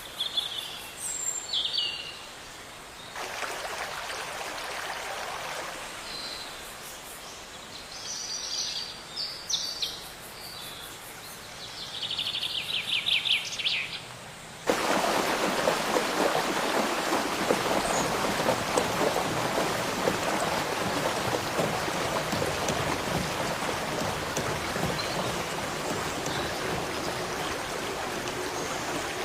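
Birds chirping over a soft hiss, with a quick run of repeated chirps a little before halfway. About halfway through, a steady rush of running water cuts in abruptly.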